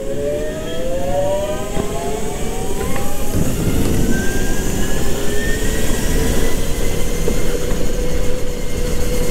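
Go-kart motor speeding up as the kart pulls away, its pitch rising over the first few seconds and then holding steady, over a steady rush of noise, heard from on board.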